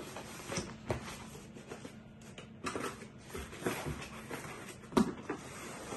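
Cardboard shipping box being handled and opened by hand: irregular rustling and scraping of the card, with a sharp knock about a second in and another near the end.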